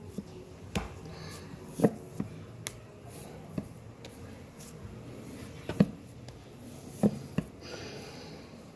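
Scattered sharp clicks and knocks of kitchen utensils being handled during pancake frying, a few of them louder, over a low background.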